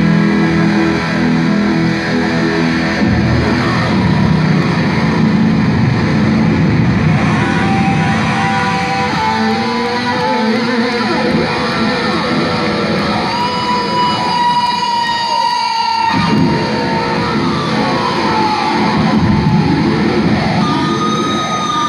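Live heavy metal: a lead electric guitar played through a loud amplifier over bass and drums, with long held notes that bend in pitch in the middle. The low end drops out for a couple of seconds just past the middle, then the full band comes back in.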